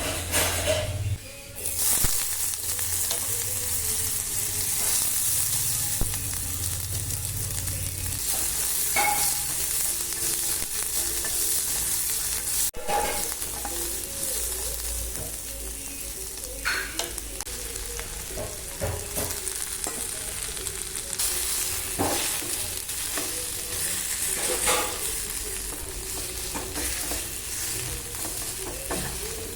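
Food frying and sizzling in a pan, with a utensil stirring and knocking against the pan a few times.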